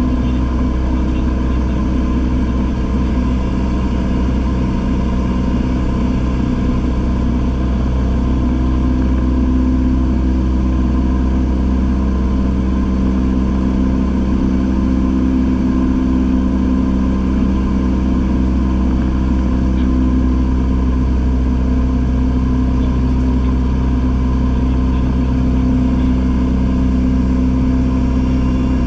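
Single-engine piston light aircraft's engine and propeller droning steadily in cruise, heard inside the cabin. It gets slightly louder about eight seconds in.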